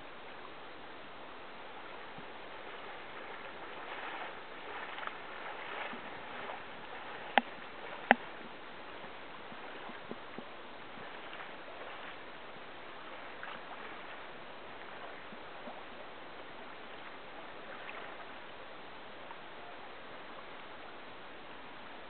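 River water rushing past wading legs, with irregular sloshing and splashing in the shallows. Two sharp clicks about seven and eight seconds in are the loudest sounds.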